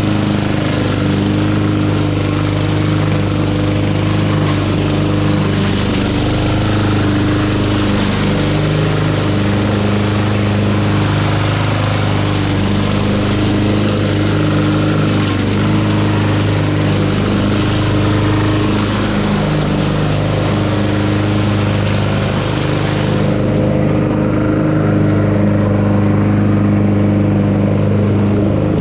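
An engine running steadily at a constant speed, loud and unbroken.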